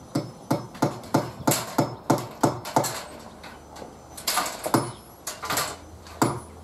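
Hammer blows on the timber wall plate, a steady run of about three strikes a second, then a short pause and a few more spaced strikes.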